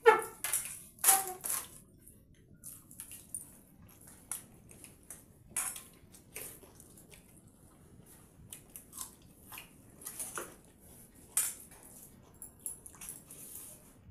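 Close-up eating sounds: hands mixing and squishing watery pakhala rice in steel bowls while two people chew with wet smacks. The clicks come irregularly and are loudest in the first two seconds, then sparser.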